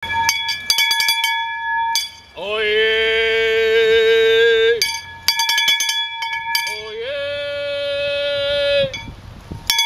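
Brass handbell rung in a quick run of clanging strokes, then a long drawn-out call from a town crier. The bell rings again, then comes a second long held call, and the bell starts once more near the end.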